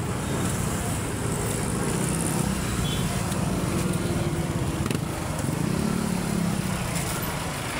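Motorbike engine running amid steady street noise, its pitch rising and then falling about six seconds in.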